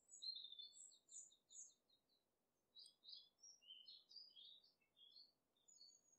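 Small songbird singing faintly in high chirps: a quick trill of evenly spaced notes in the first two seconds, then a run of varied chirps and short whistles.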